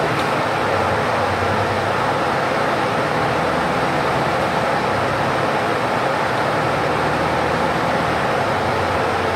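Steady running noise inside a moving city bus: a low engine drone under an even rush of road and tyre noise as the bus cruises along.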